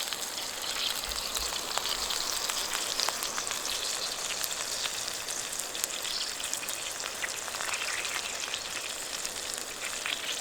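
Hamburger patty frying in a pan: a steady sizzle full of fine crackles and spatters.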